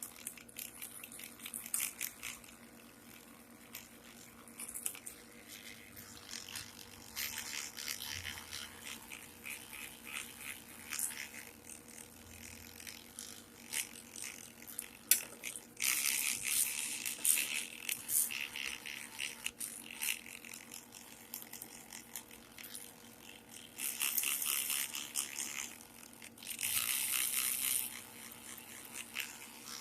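A brush scrubbing the metal parts of a rusty antique sewing machine in irregular strokes, with three louder stretches of scrubbing in the second half.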